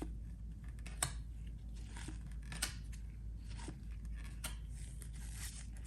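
Trading cards being handled and flipped through one at a time: faint sliding of card stock with a few light clicks as cards are pulled off the stack.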